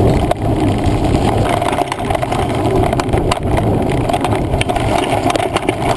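Mountain bike rattling over a rough woodland trail: a steady rumble of tyres on dirt, with frequent sharp clattering knocks from the jolting bike.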